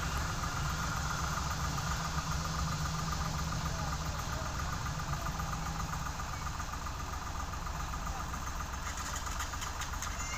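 Airbus A321 jet engines at taxi idle: a steady whine over a low rumble as the airliner taxis along the runway.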